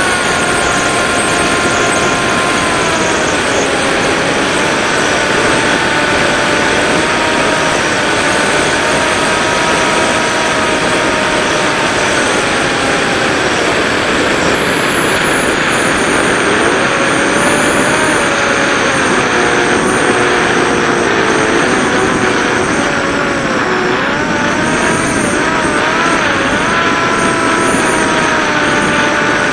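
Ritewing Drak flying wing's electric motor and propeller whining in flight, heard from the onboard camera over loud wind rush on the microphone. The whine's pitch changes with throttle, dropping a few seconds in and wavering up and down in the second half.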